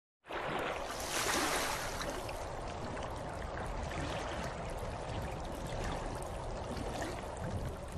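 Water sound effect: a steady rush of splashing, pouring water, louder for a moment about a second in.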